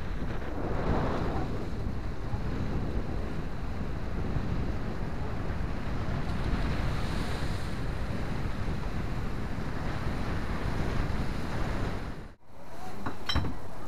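Surf breaking on a rough sea, with wind buffeting the microphone. Near the end it cuts off abruptly, and a few sharp clicks follow.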